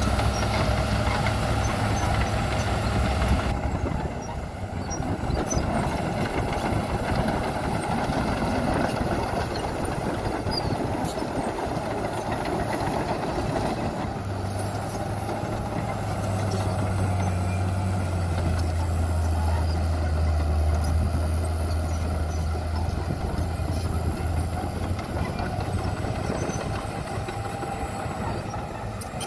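Heavy diesel construction machinery running, a steady engine drone with a deep hum that is strong briefly at the start and swells again from about halfway in until near the end.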